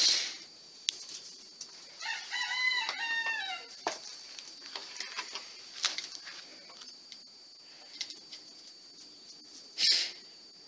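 A rooster crows once, a short stepped cock-a-doodle-doo about two seconds in, over a steady high-pitched whine. Two brief noisy bursts, one at the start and one near the end, are the loudest sounds.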